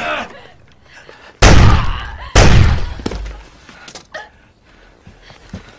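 Two loud, sudden heavy thuds about a second apart, each dying away over half a second, followed by a few faint knocks.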